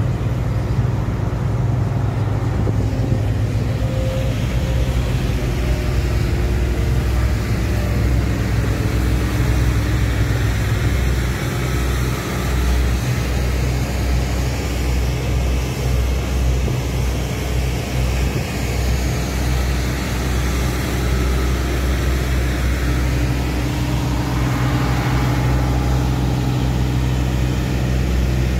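Diesel engines of asphalt-paving machinery running: a steady, deep engine drone from the paver, its tipper truck and a road roller.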